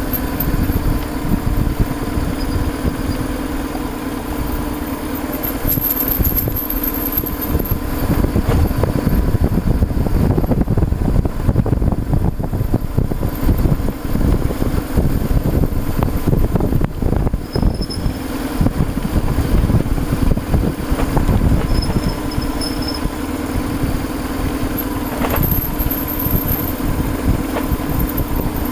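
BMW R1200RT motorcycle's boxer-twin engine running at a steady pace, heard on board while riding a rough dirt track, with the rumble and buffeting of the bumpy ride and wind underneath.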